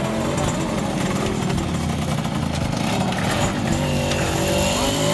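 Small vintage moped or motorcycle engine running, its pitch shifting a little partway through.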